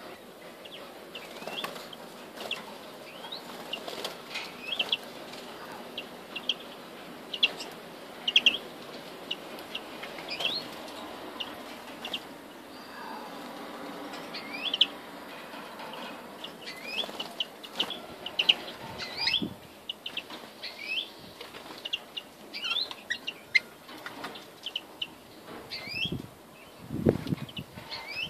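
Caged European greenfinches of the Scottish type giving many short, sharp chirps and twitters, sometimes several in quick succession, with wing flapping and rustling against the cage, loudest near the end.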